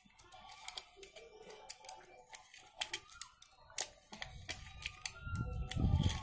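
Irregular small plastic clicks and taps as a tape measure's plastic case and reel are handled and fitted together. From about four seconds in, a low rumble builds up underneath.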